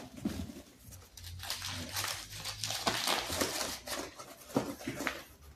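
Crumpled packing paper and cardboard crinkling and rustling as paper balls are stuffed into a cardboard box, in a run of irregular crackles.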